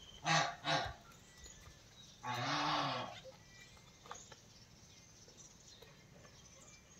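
A goat bleats once, a single low call that rises and falls in pitch, starting a little over two seconds in. Two brief loud sounds come near the start.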